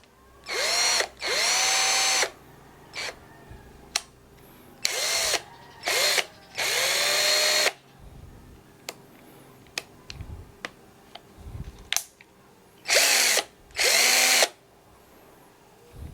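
Cordless drill run with no load in about seven short bursts, its motor whining up to speed each time and then stopping. Small clicks fall in the gaps between bursts.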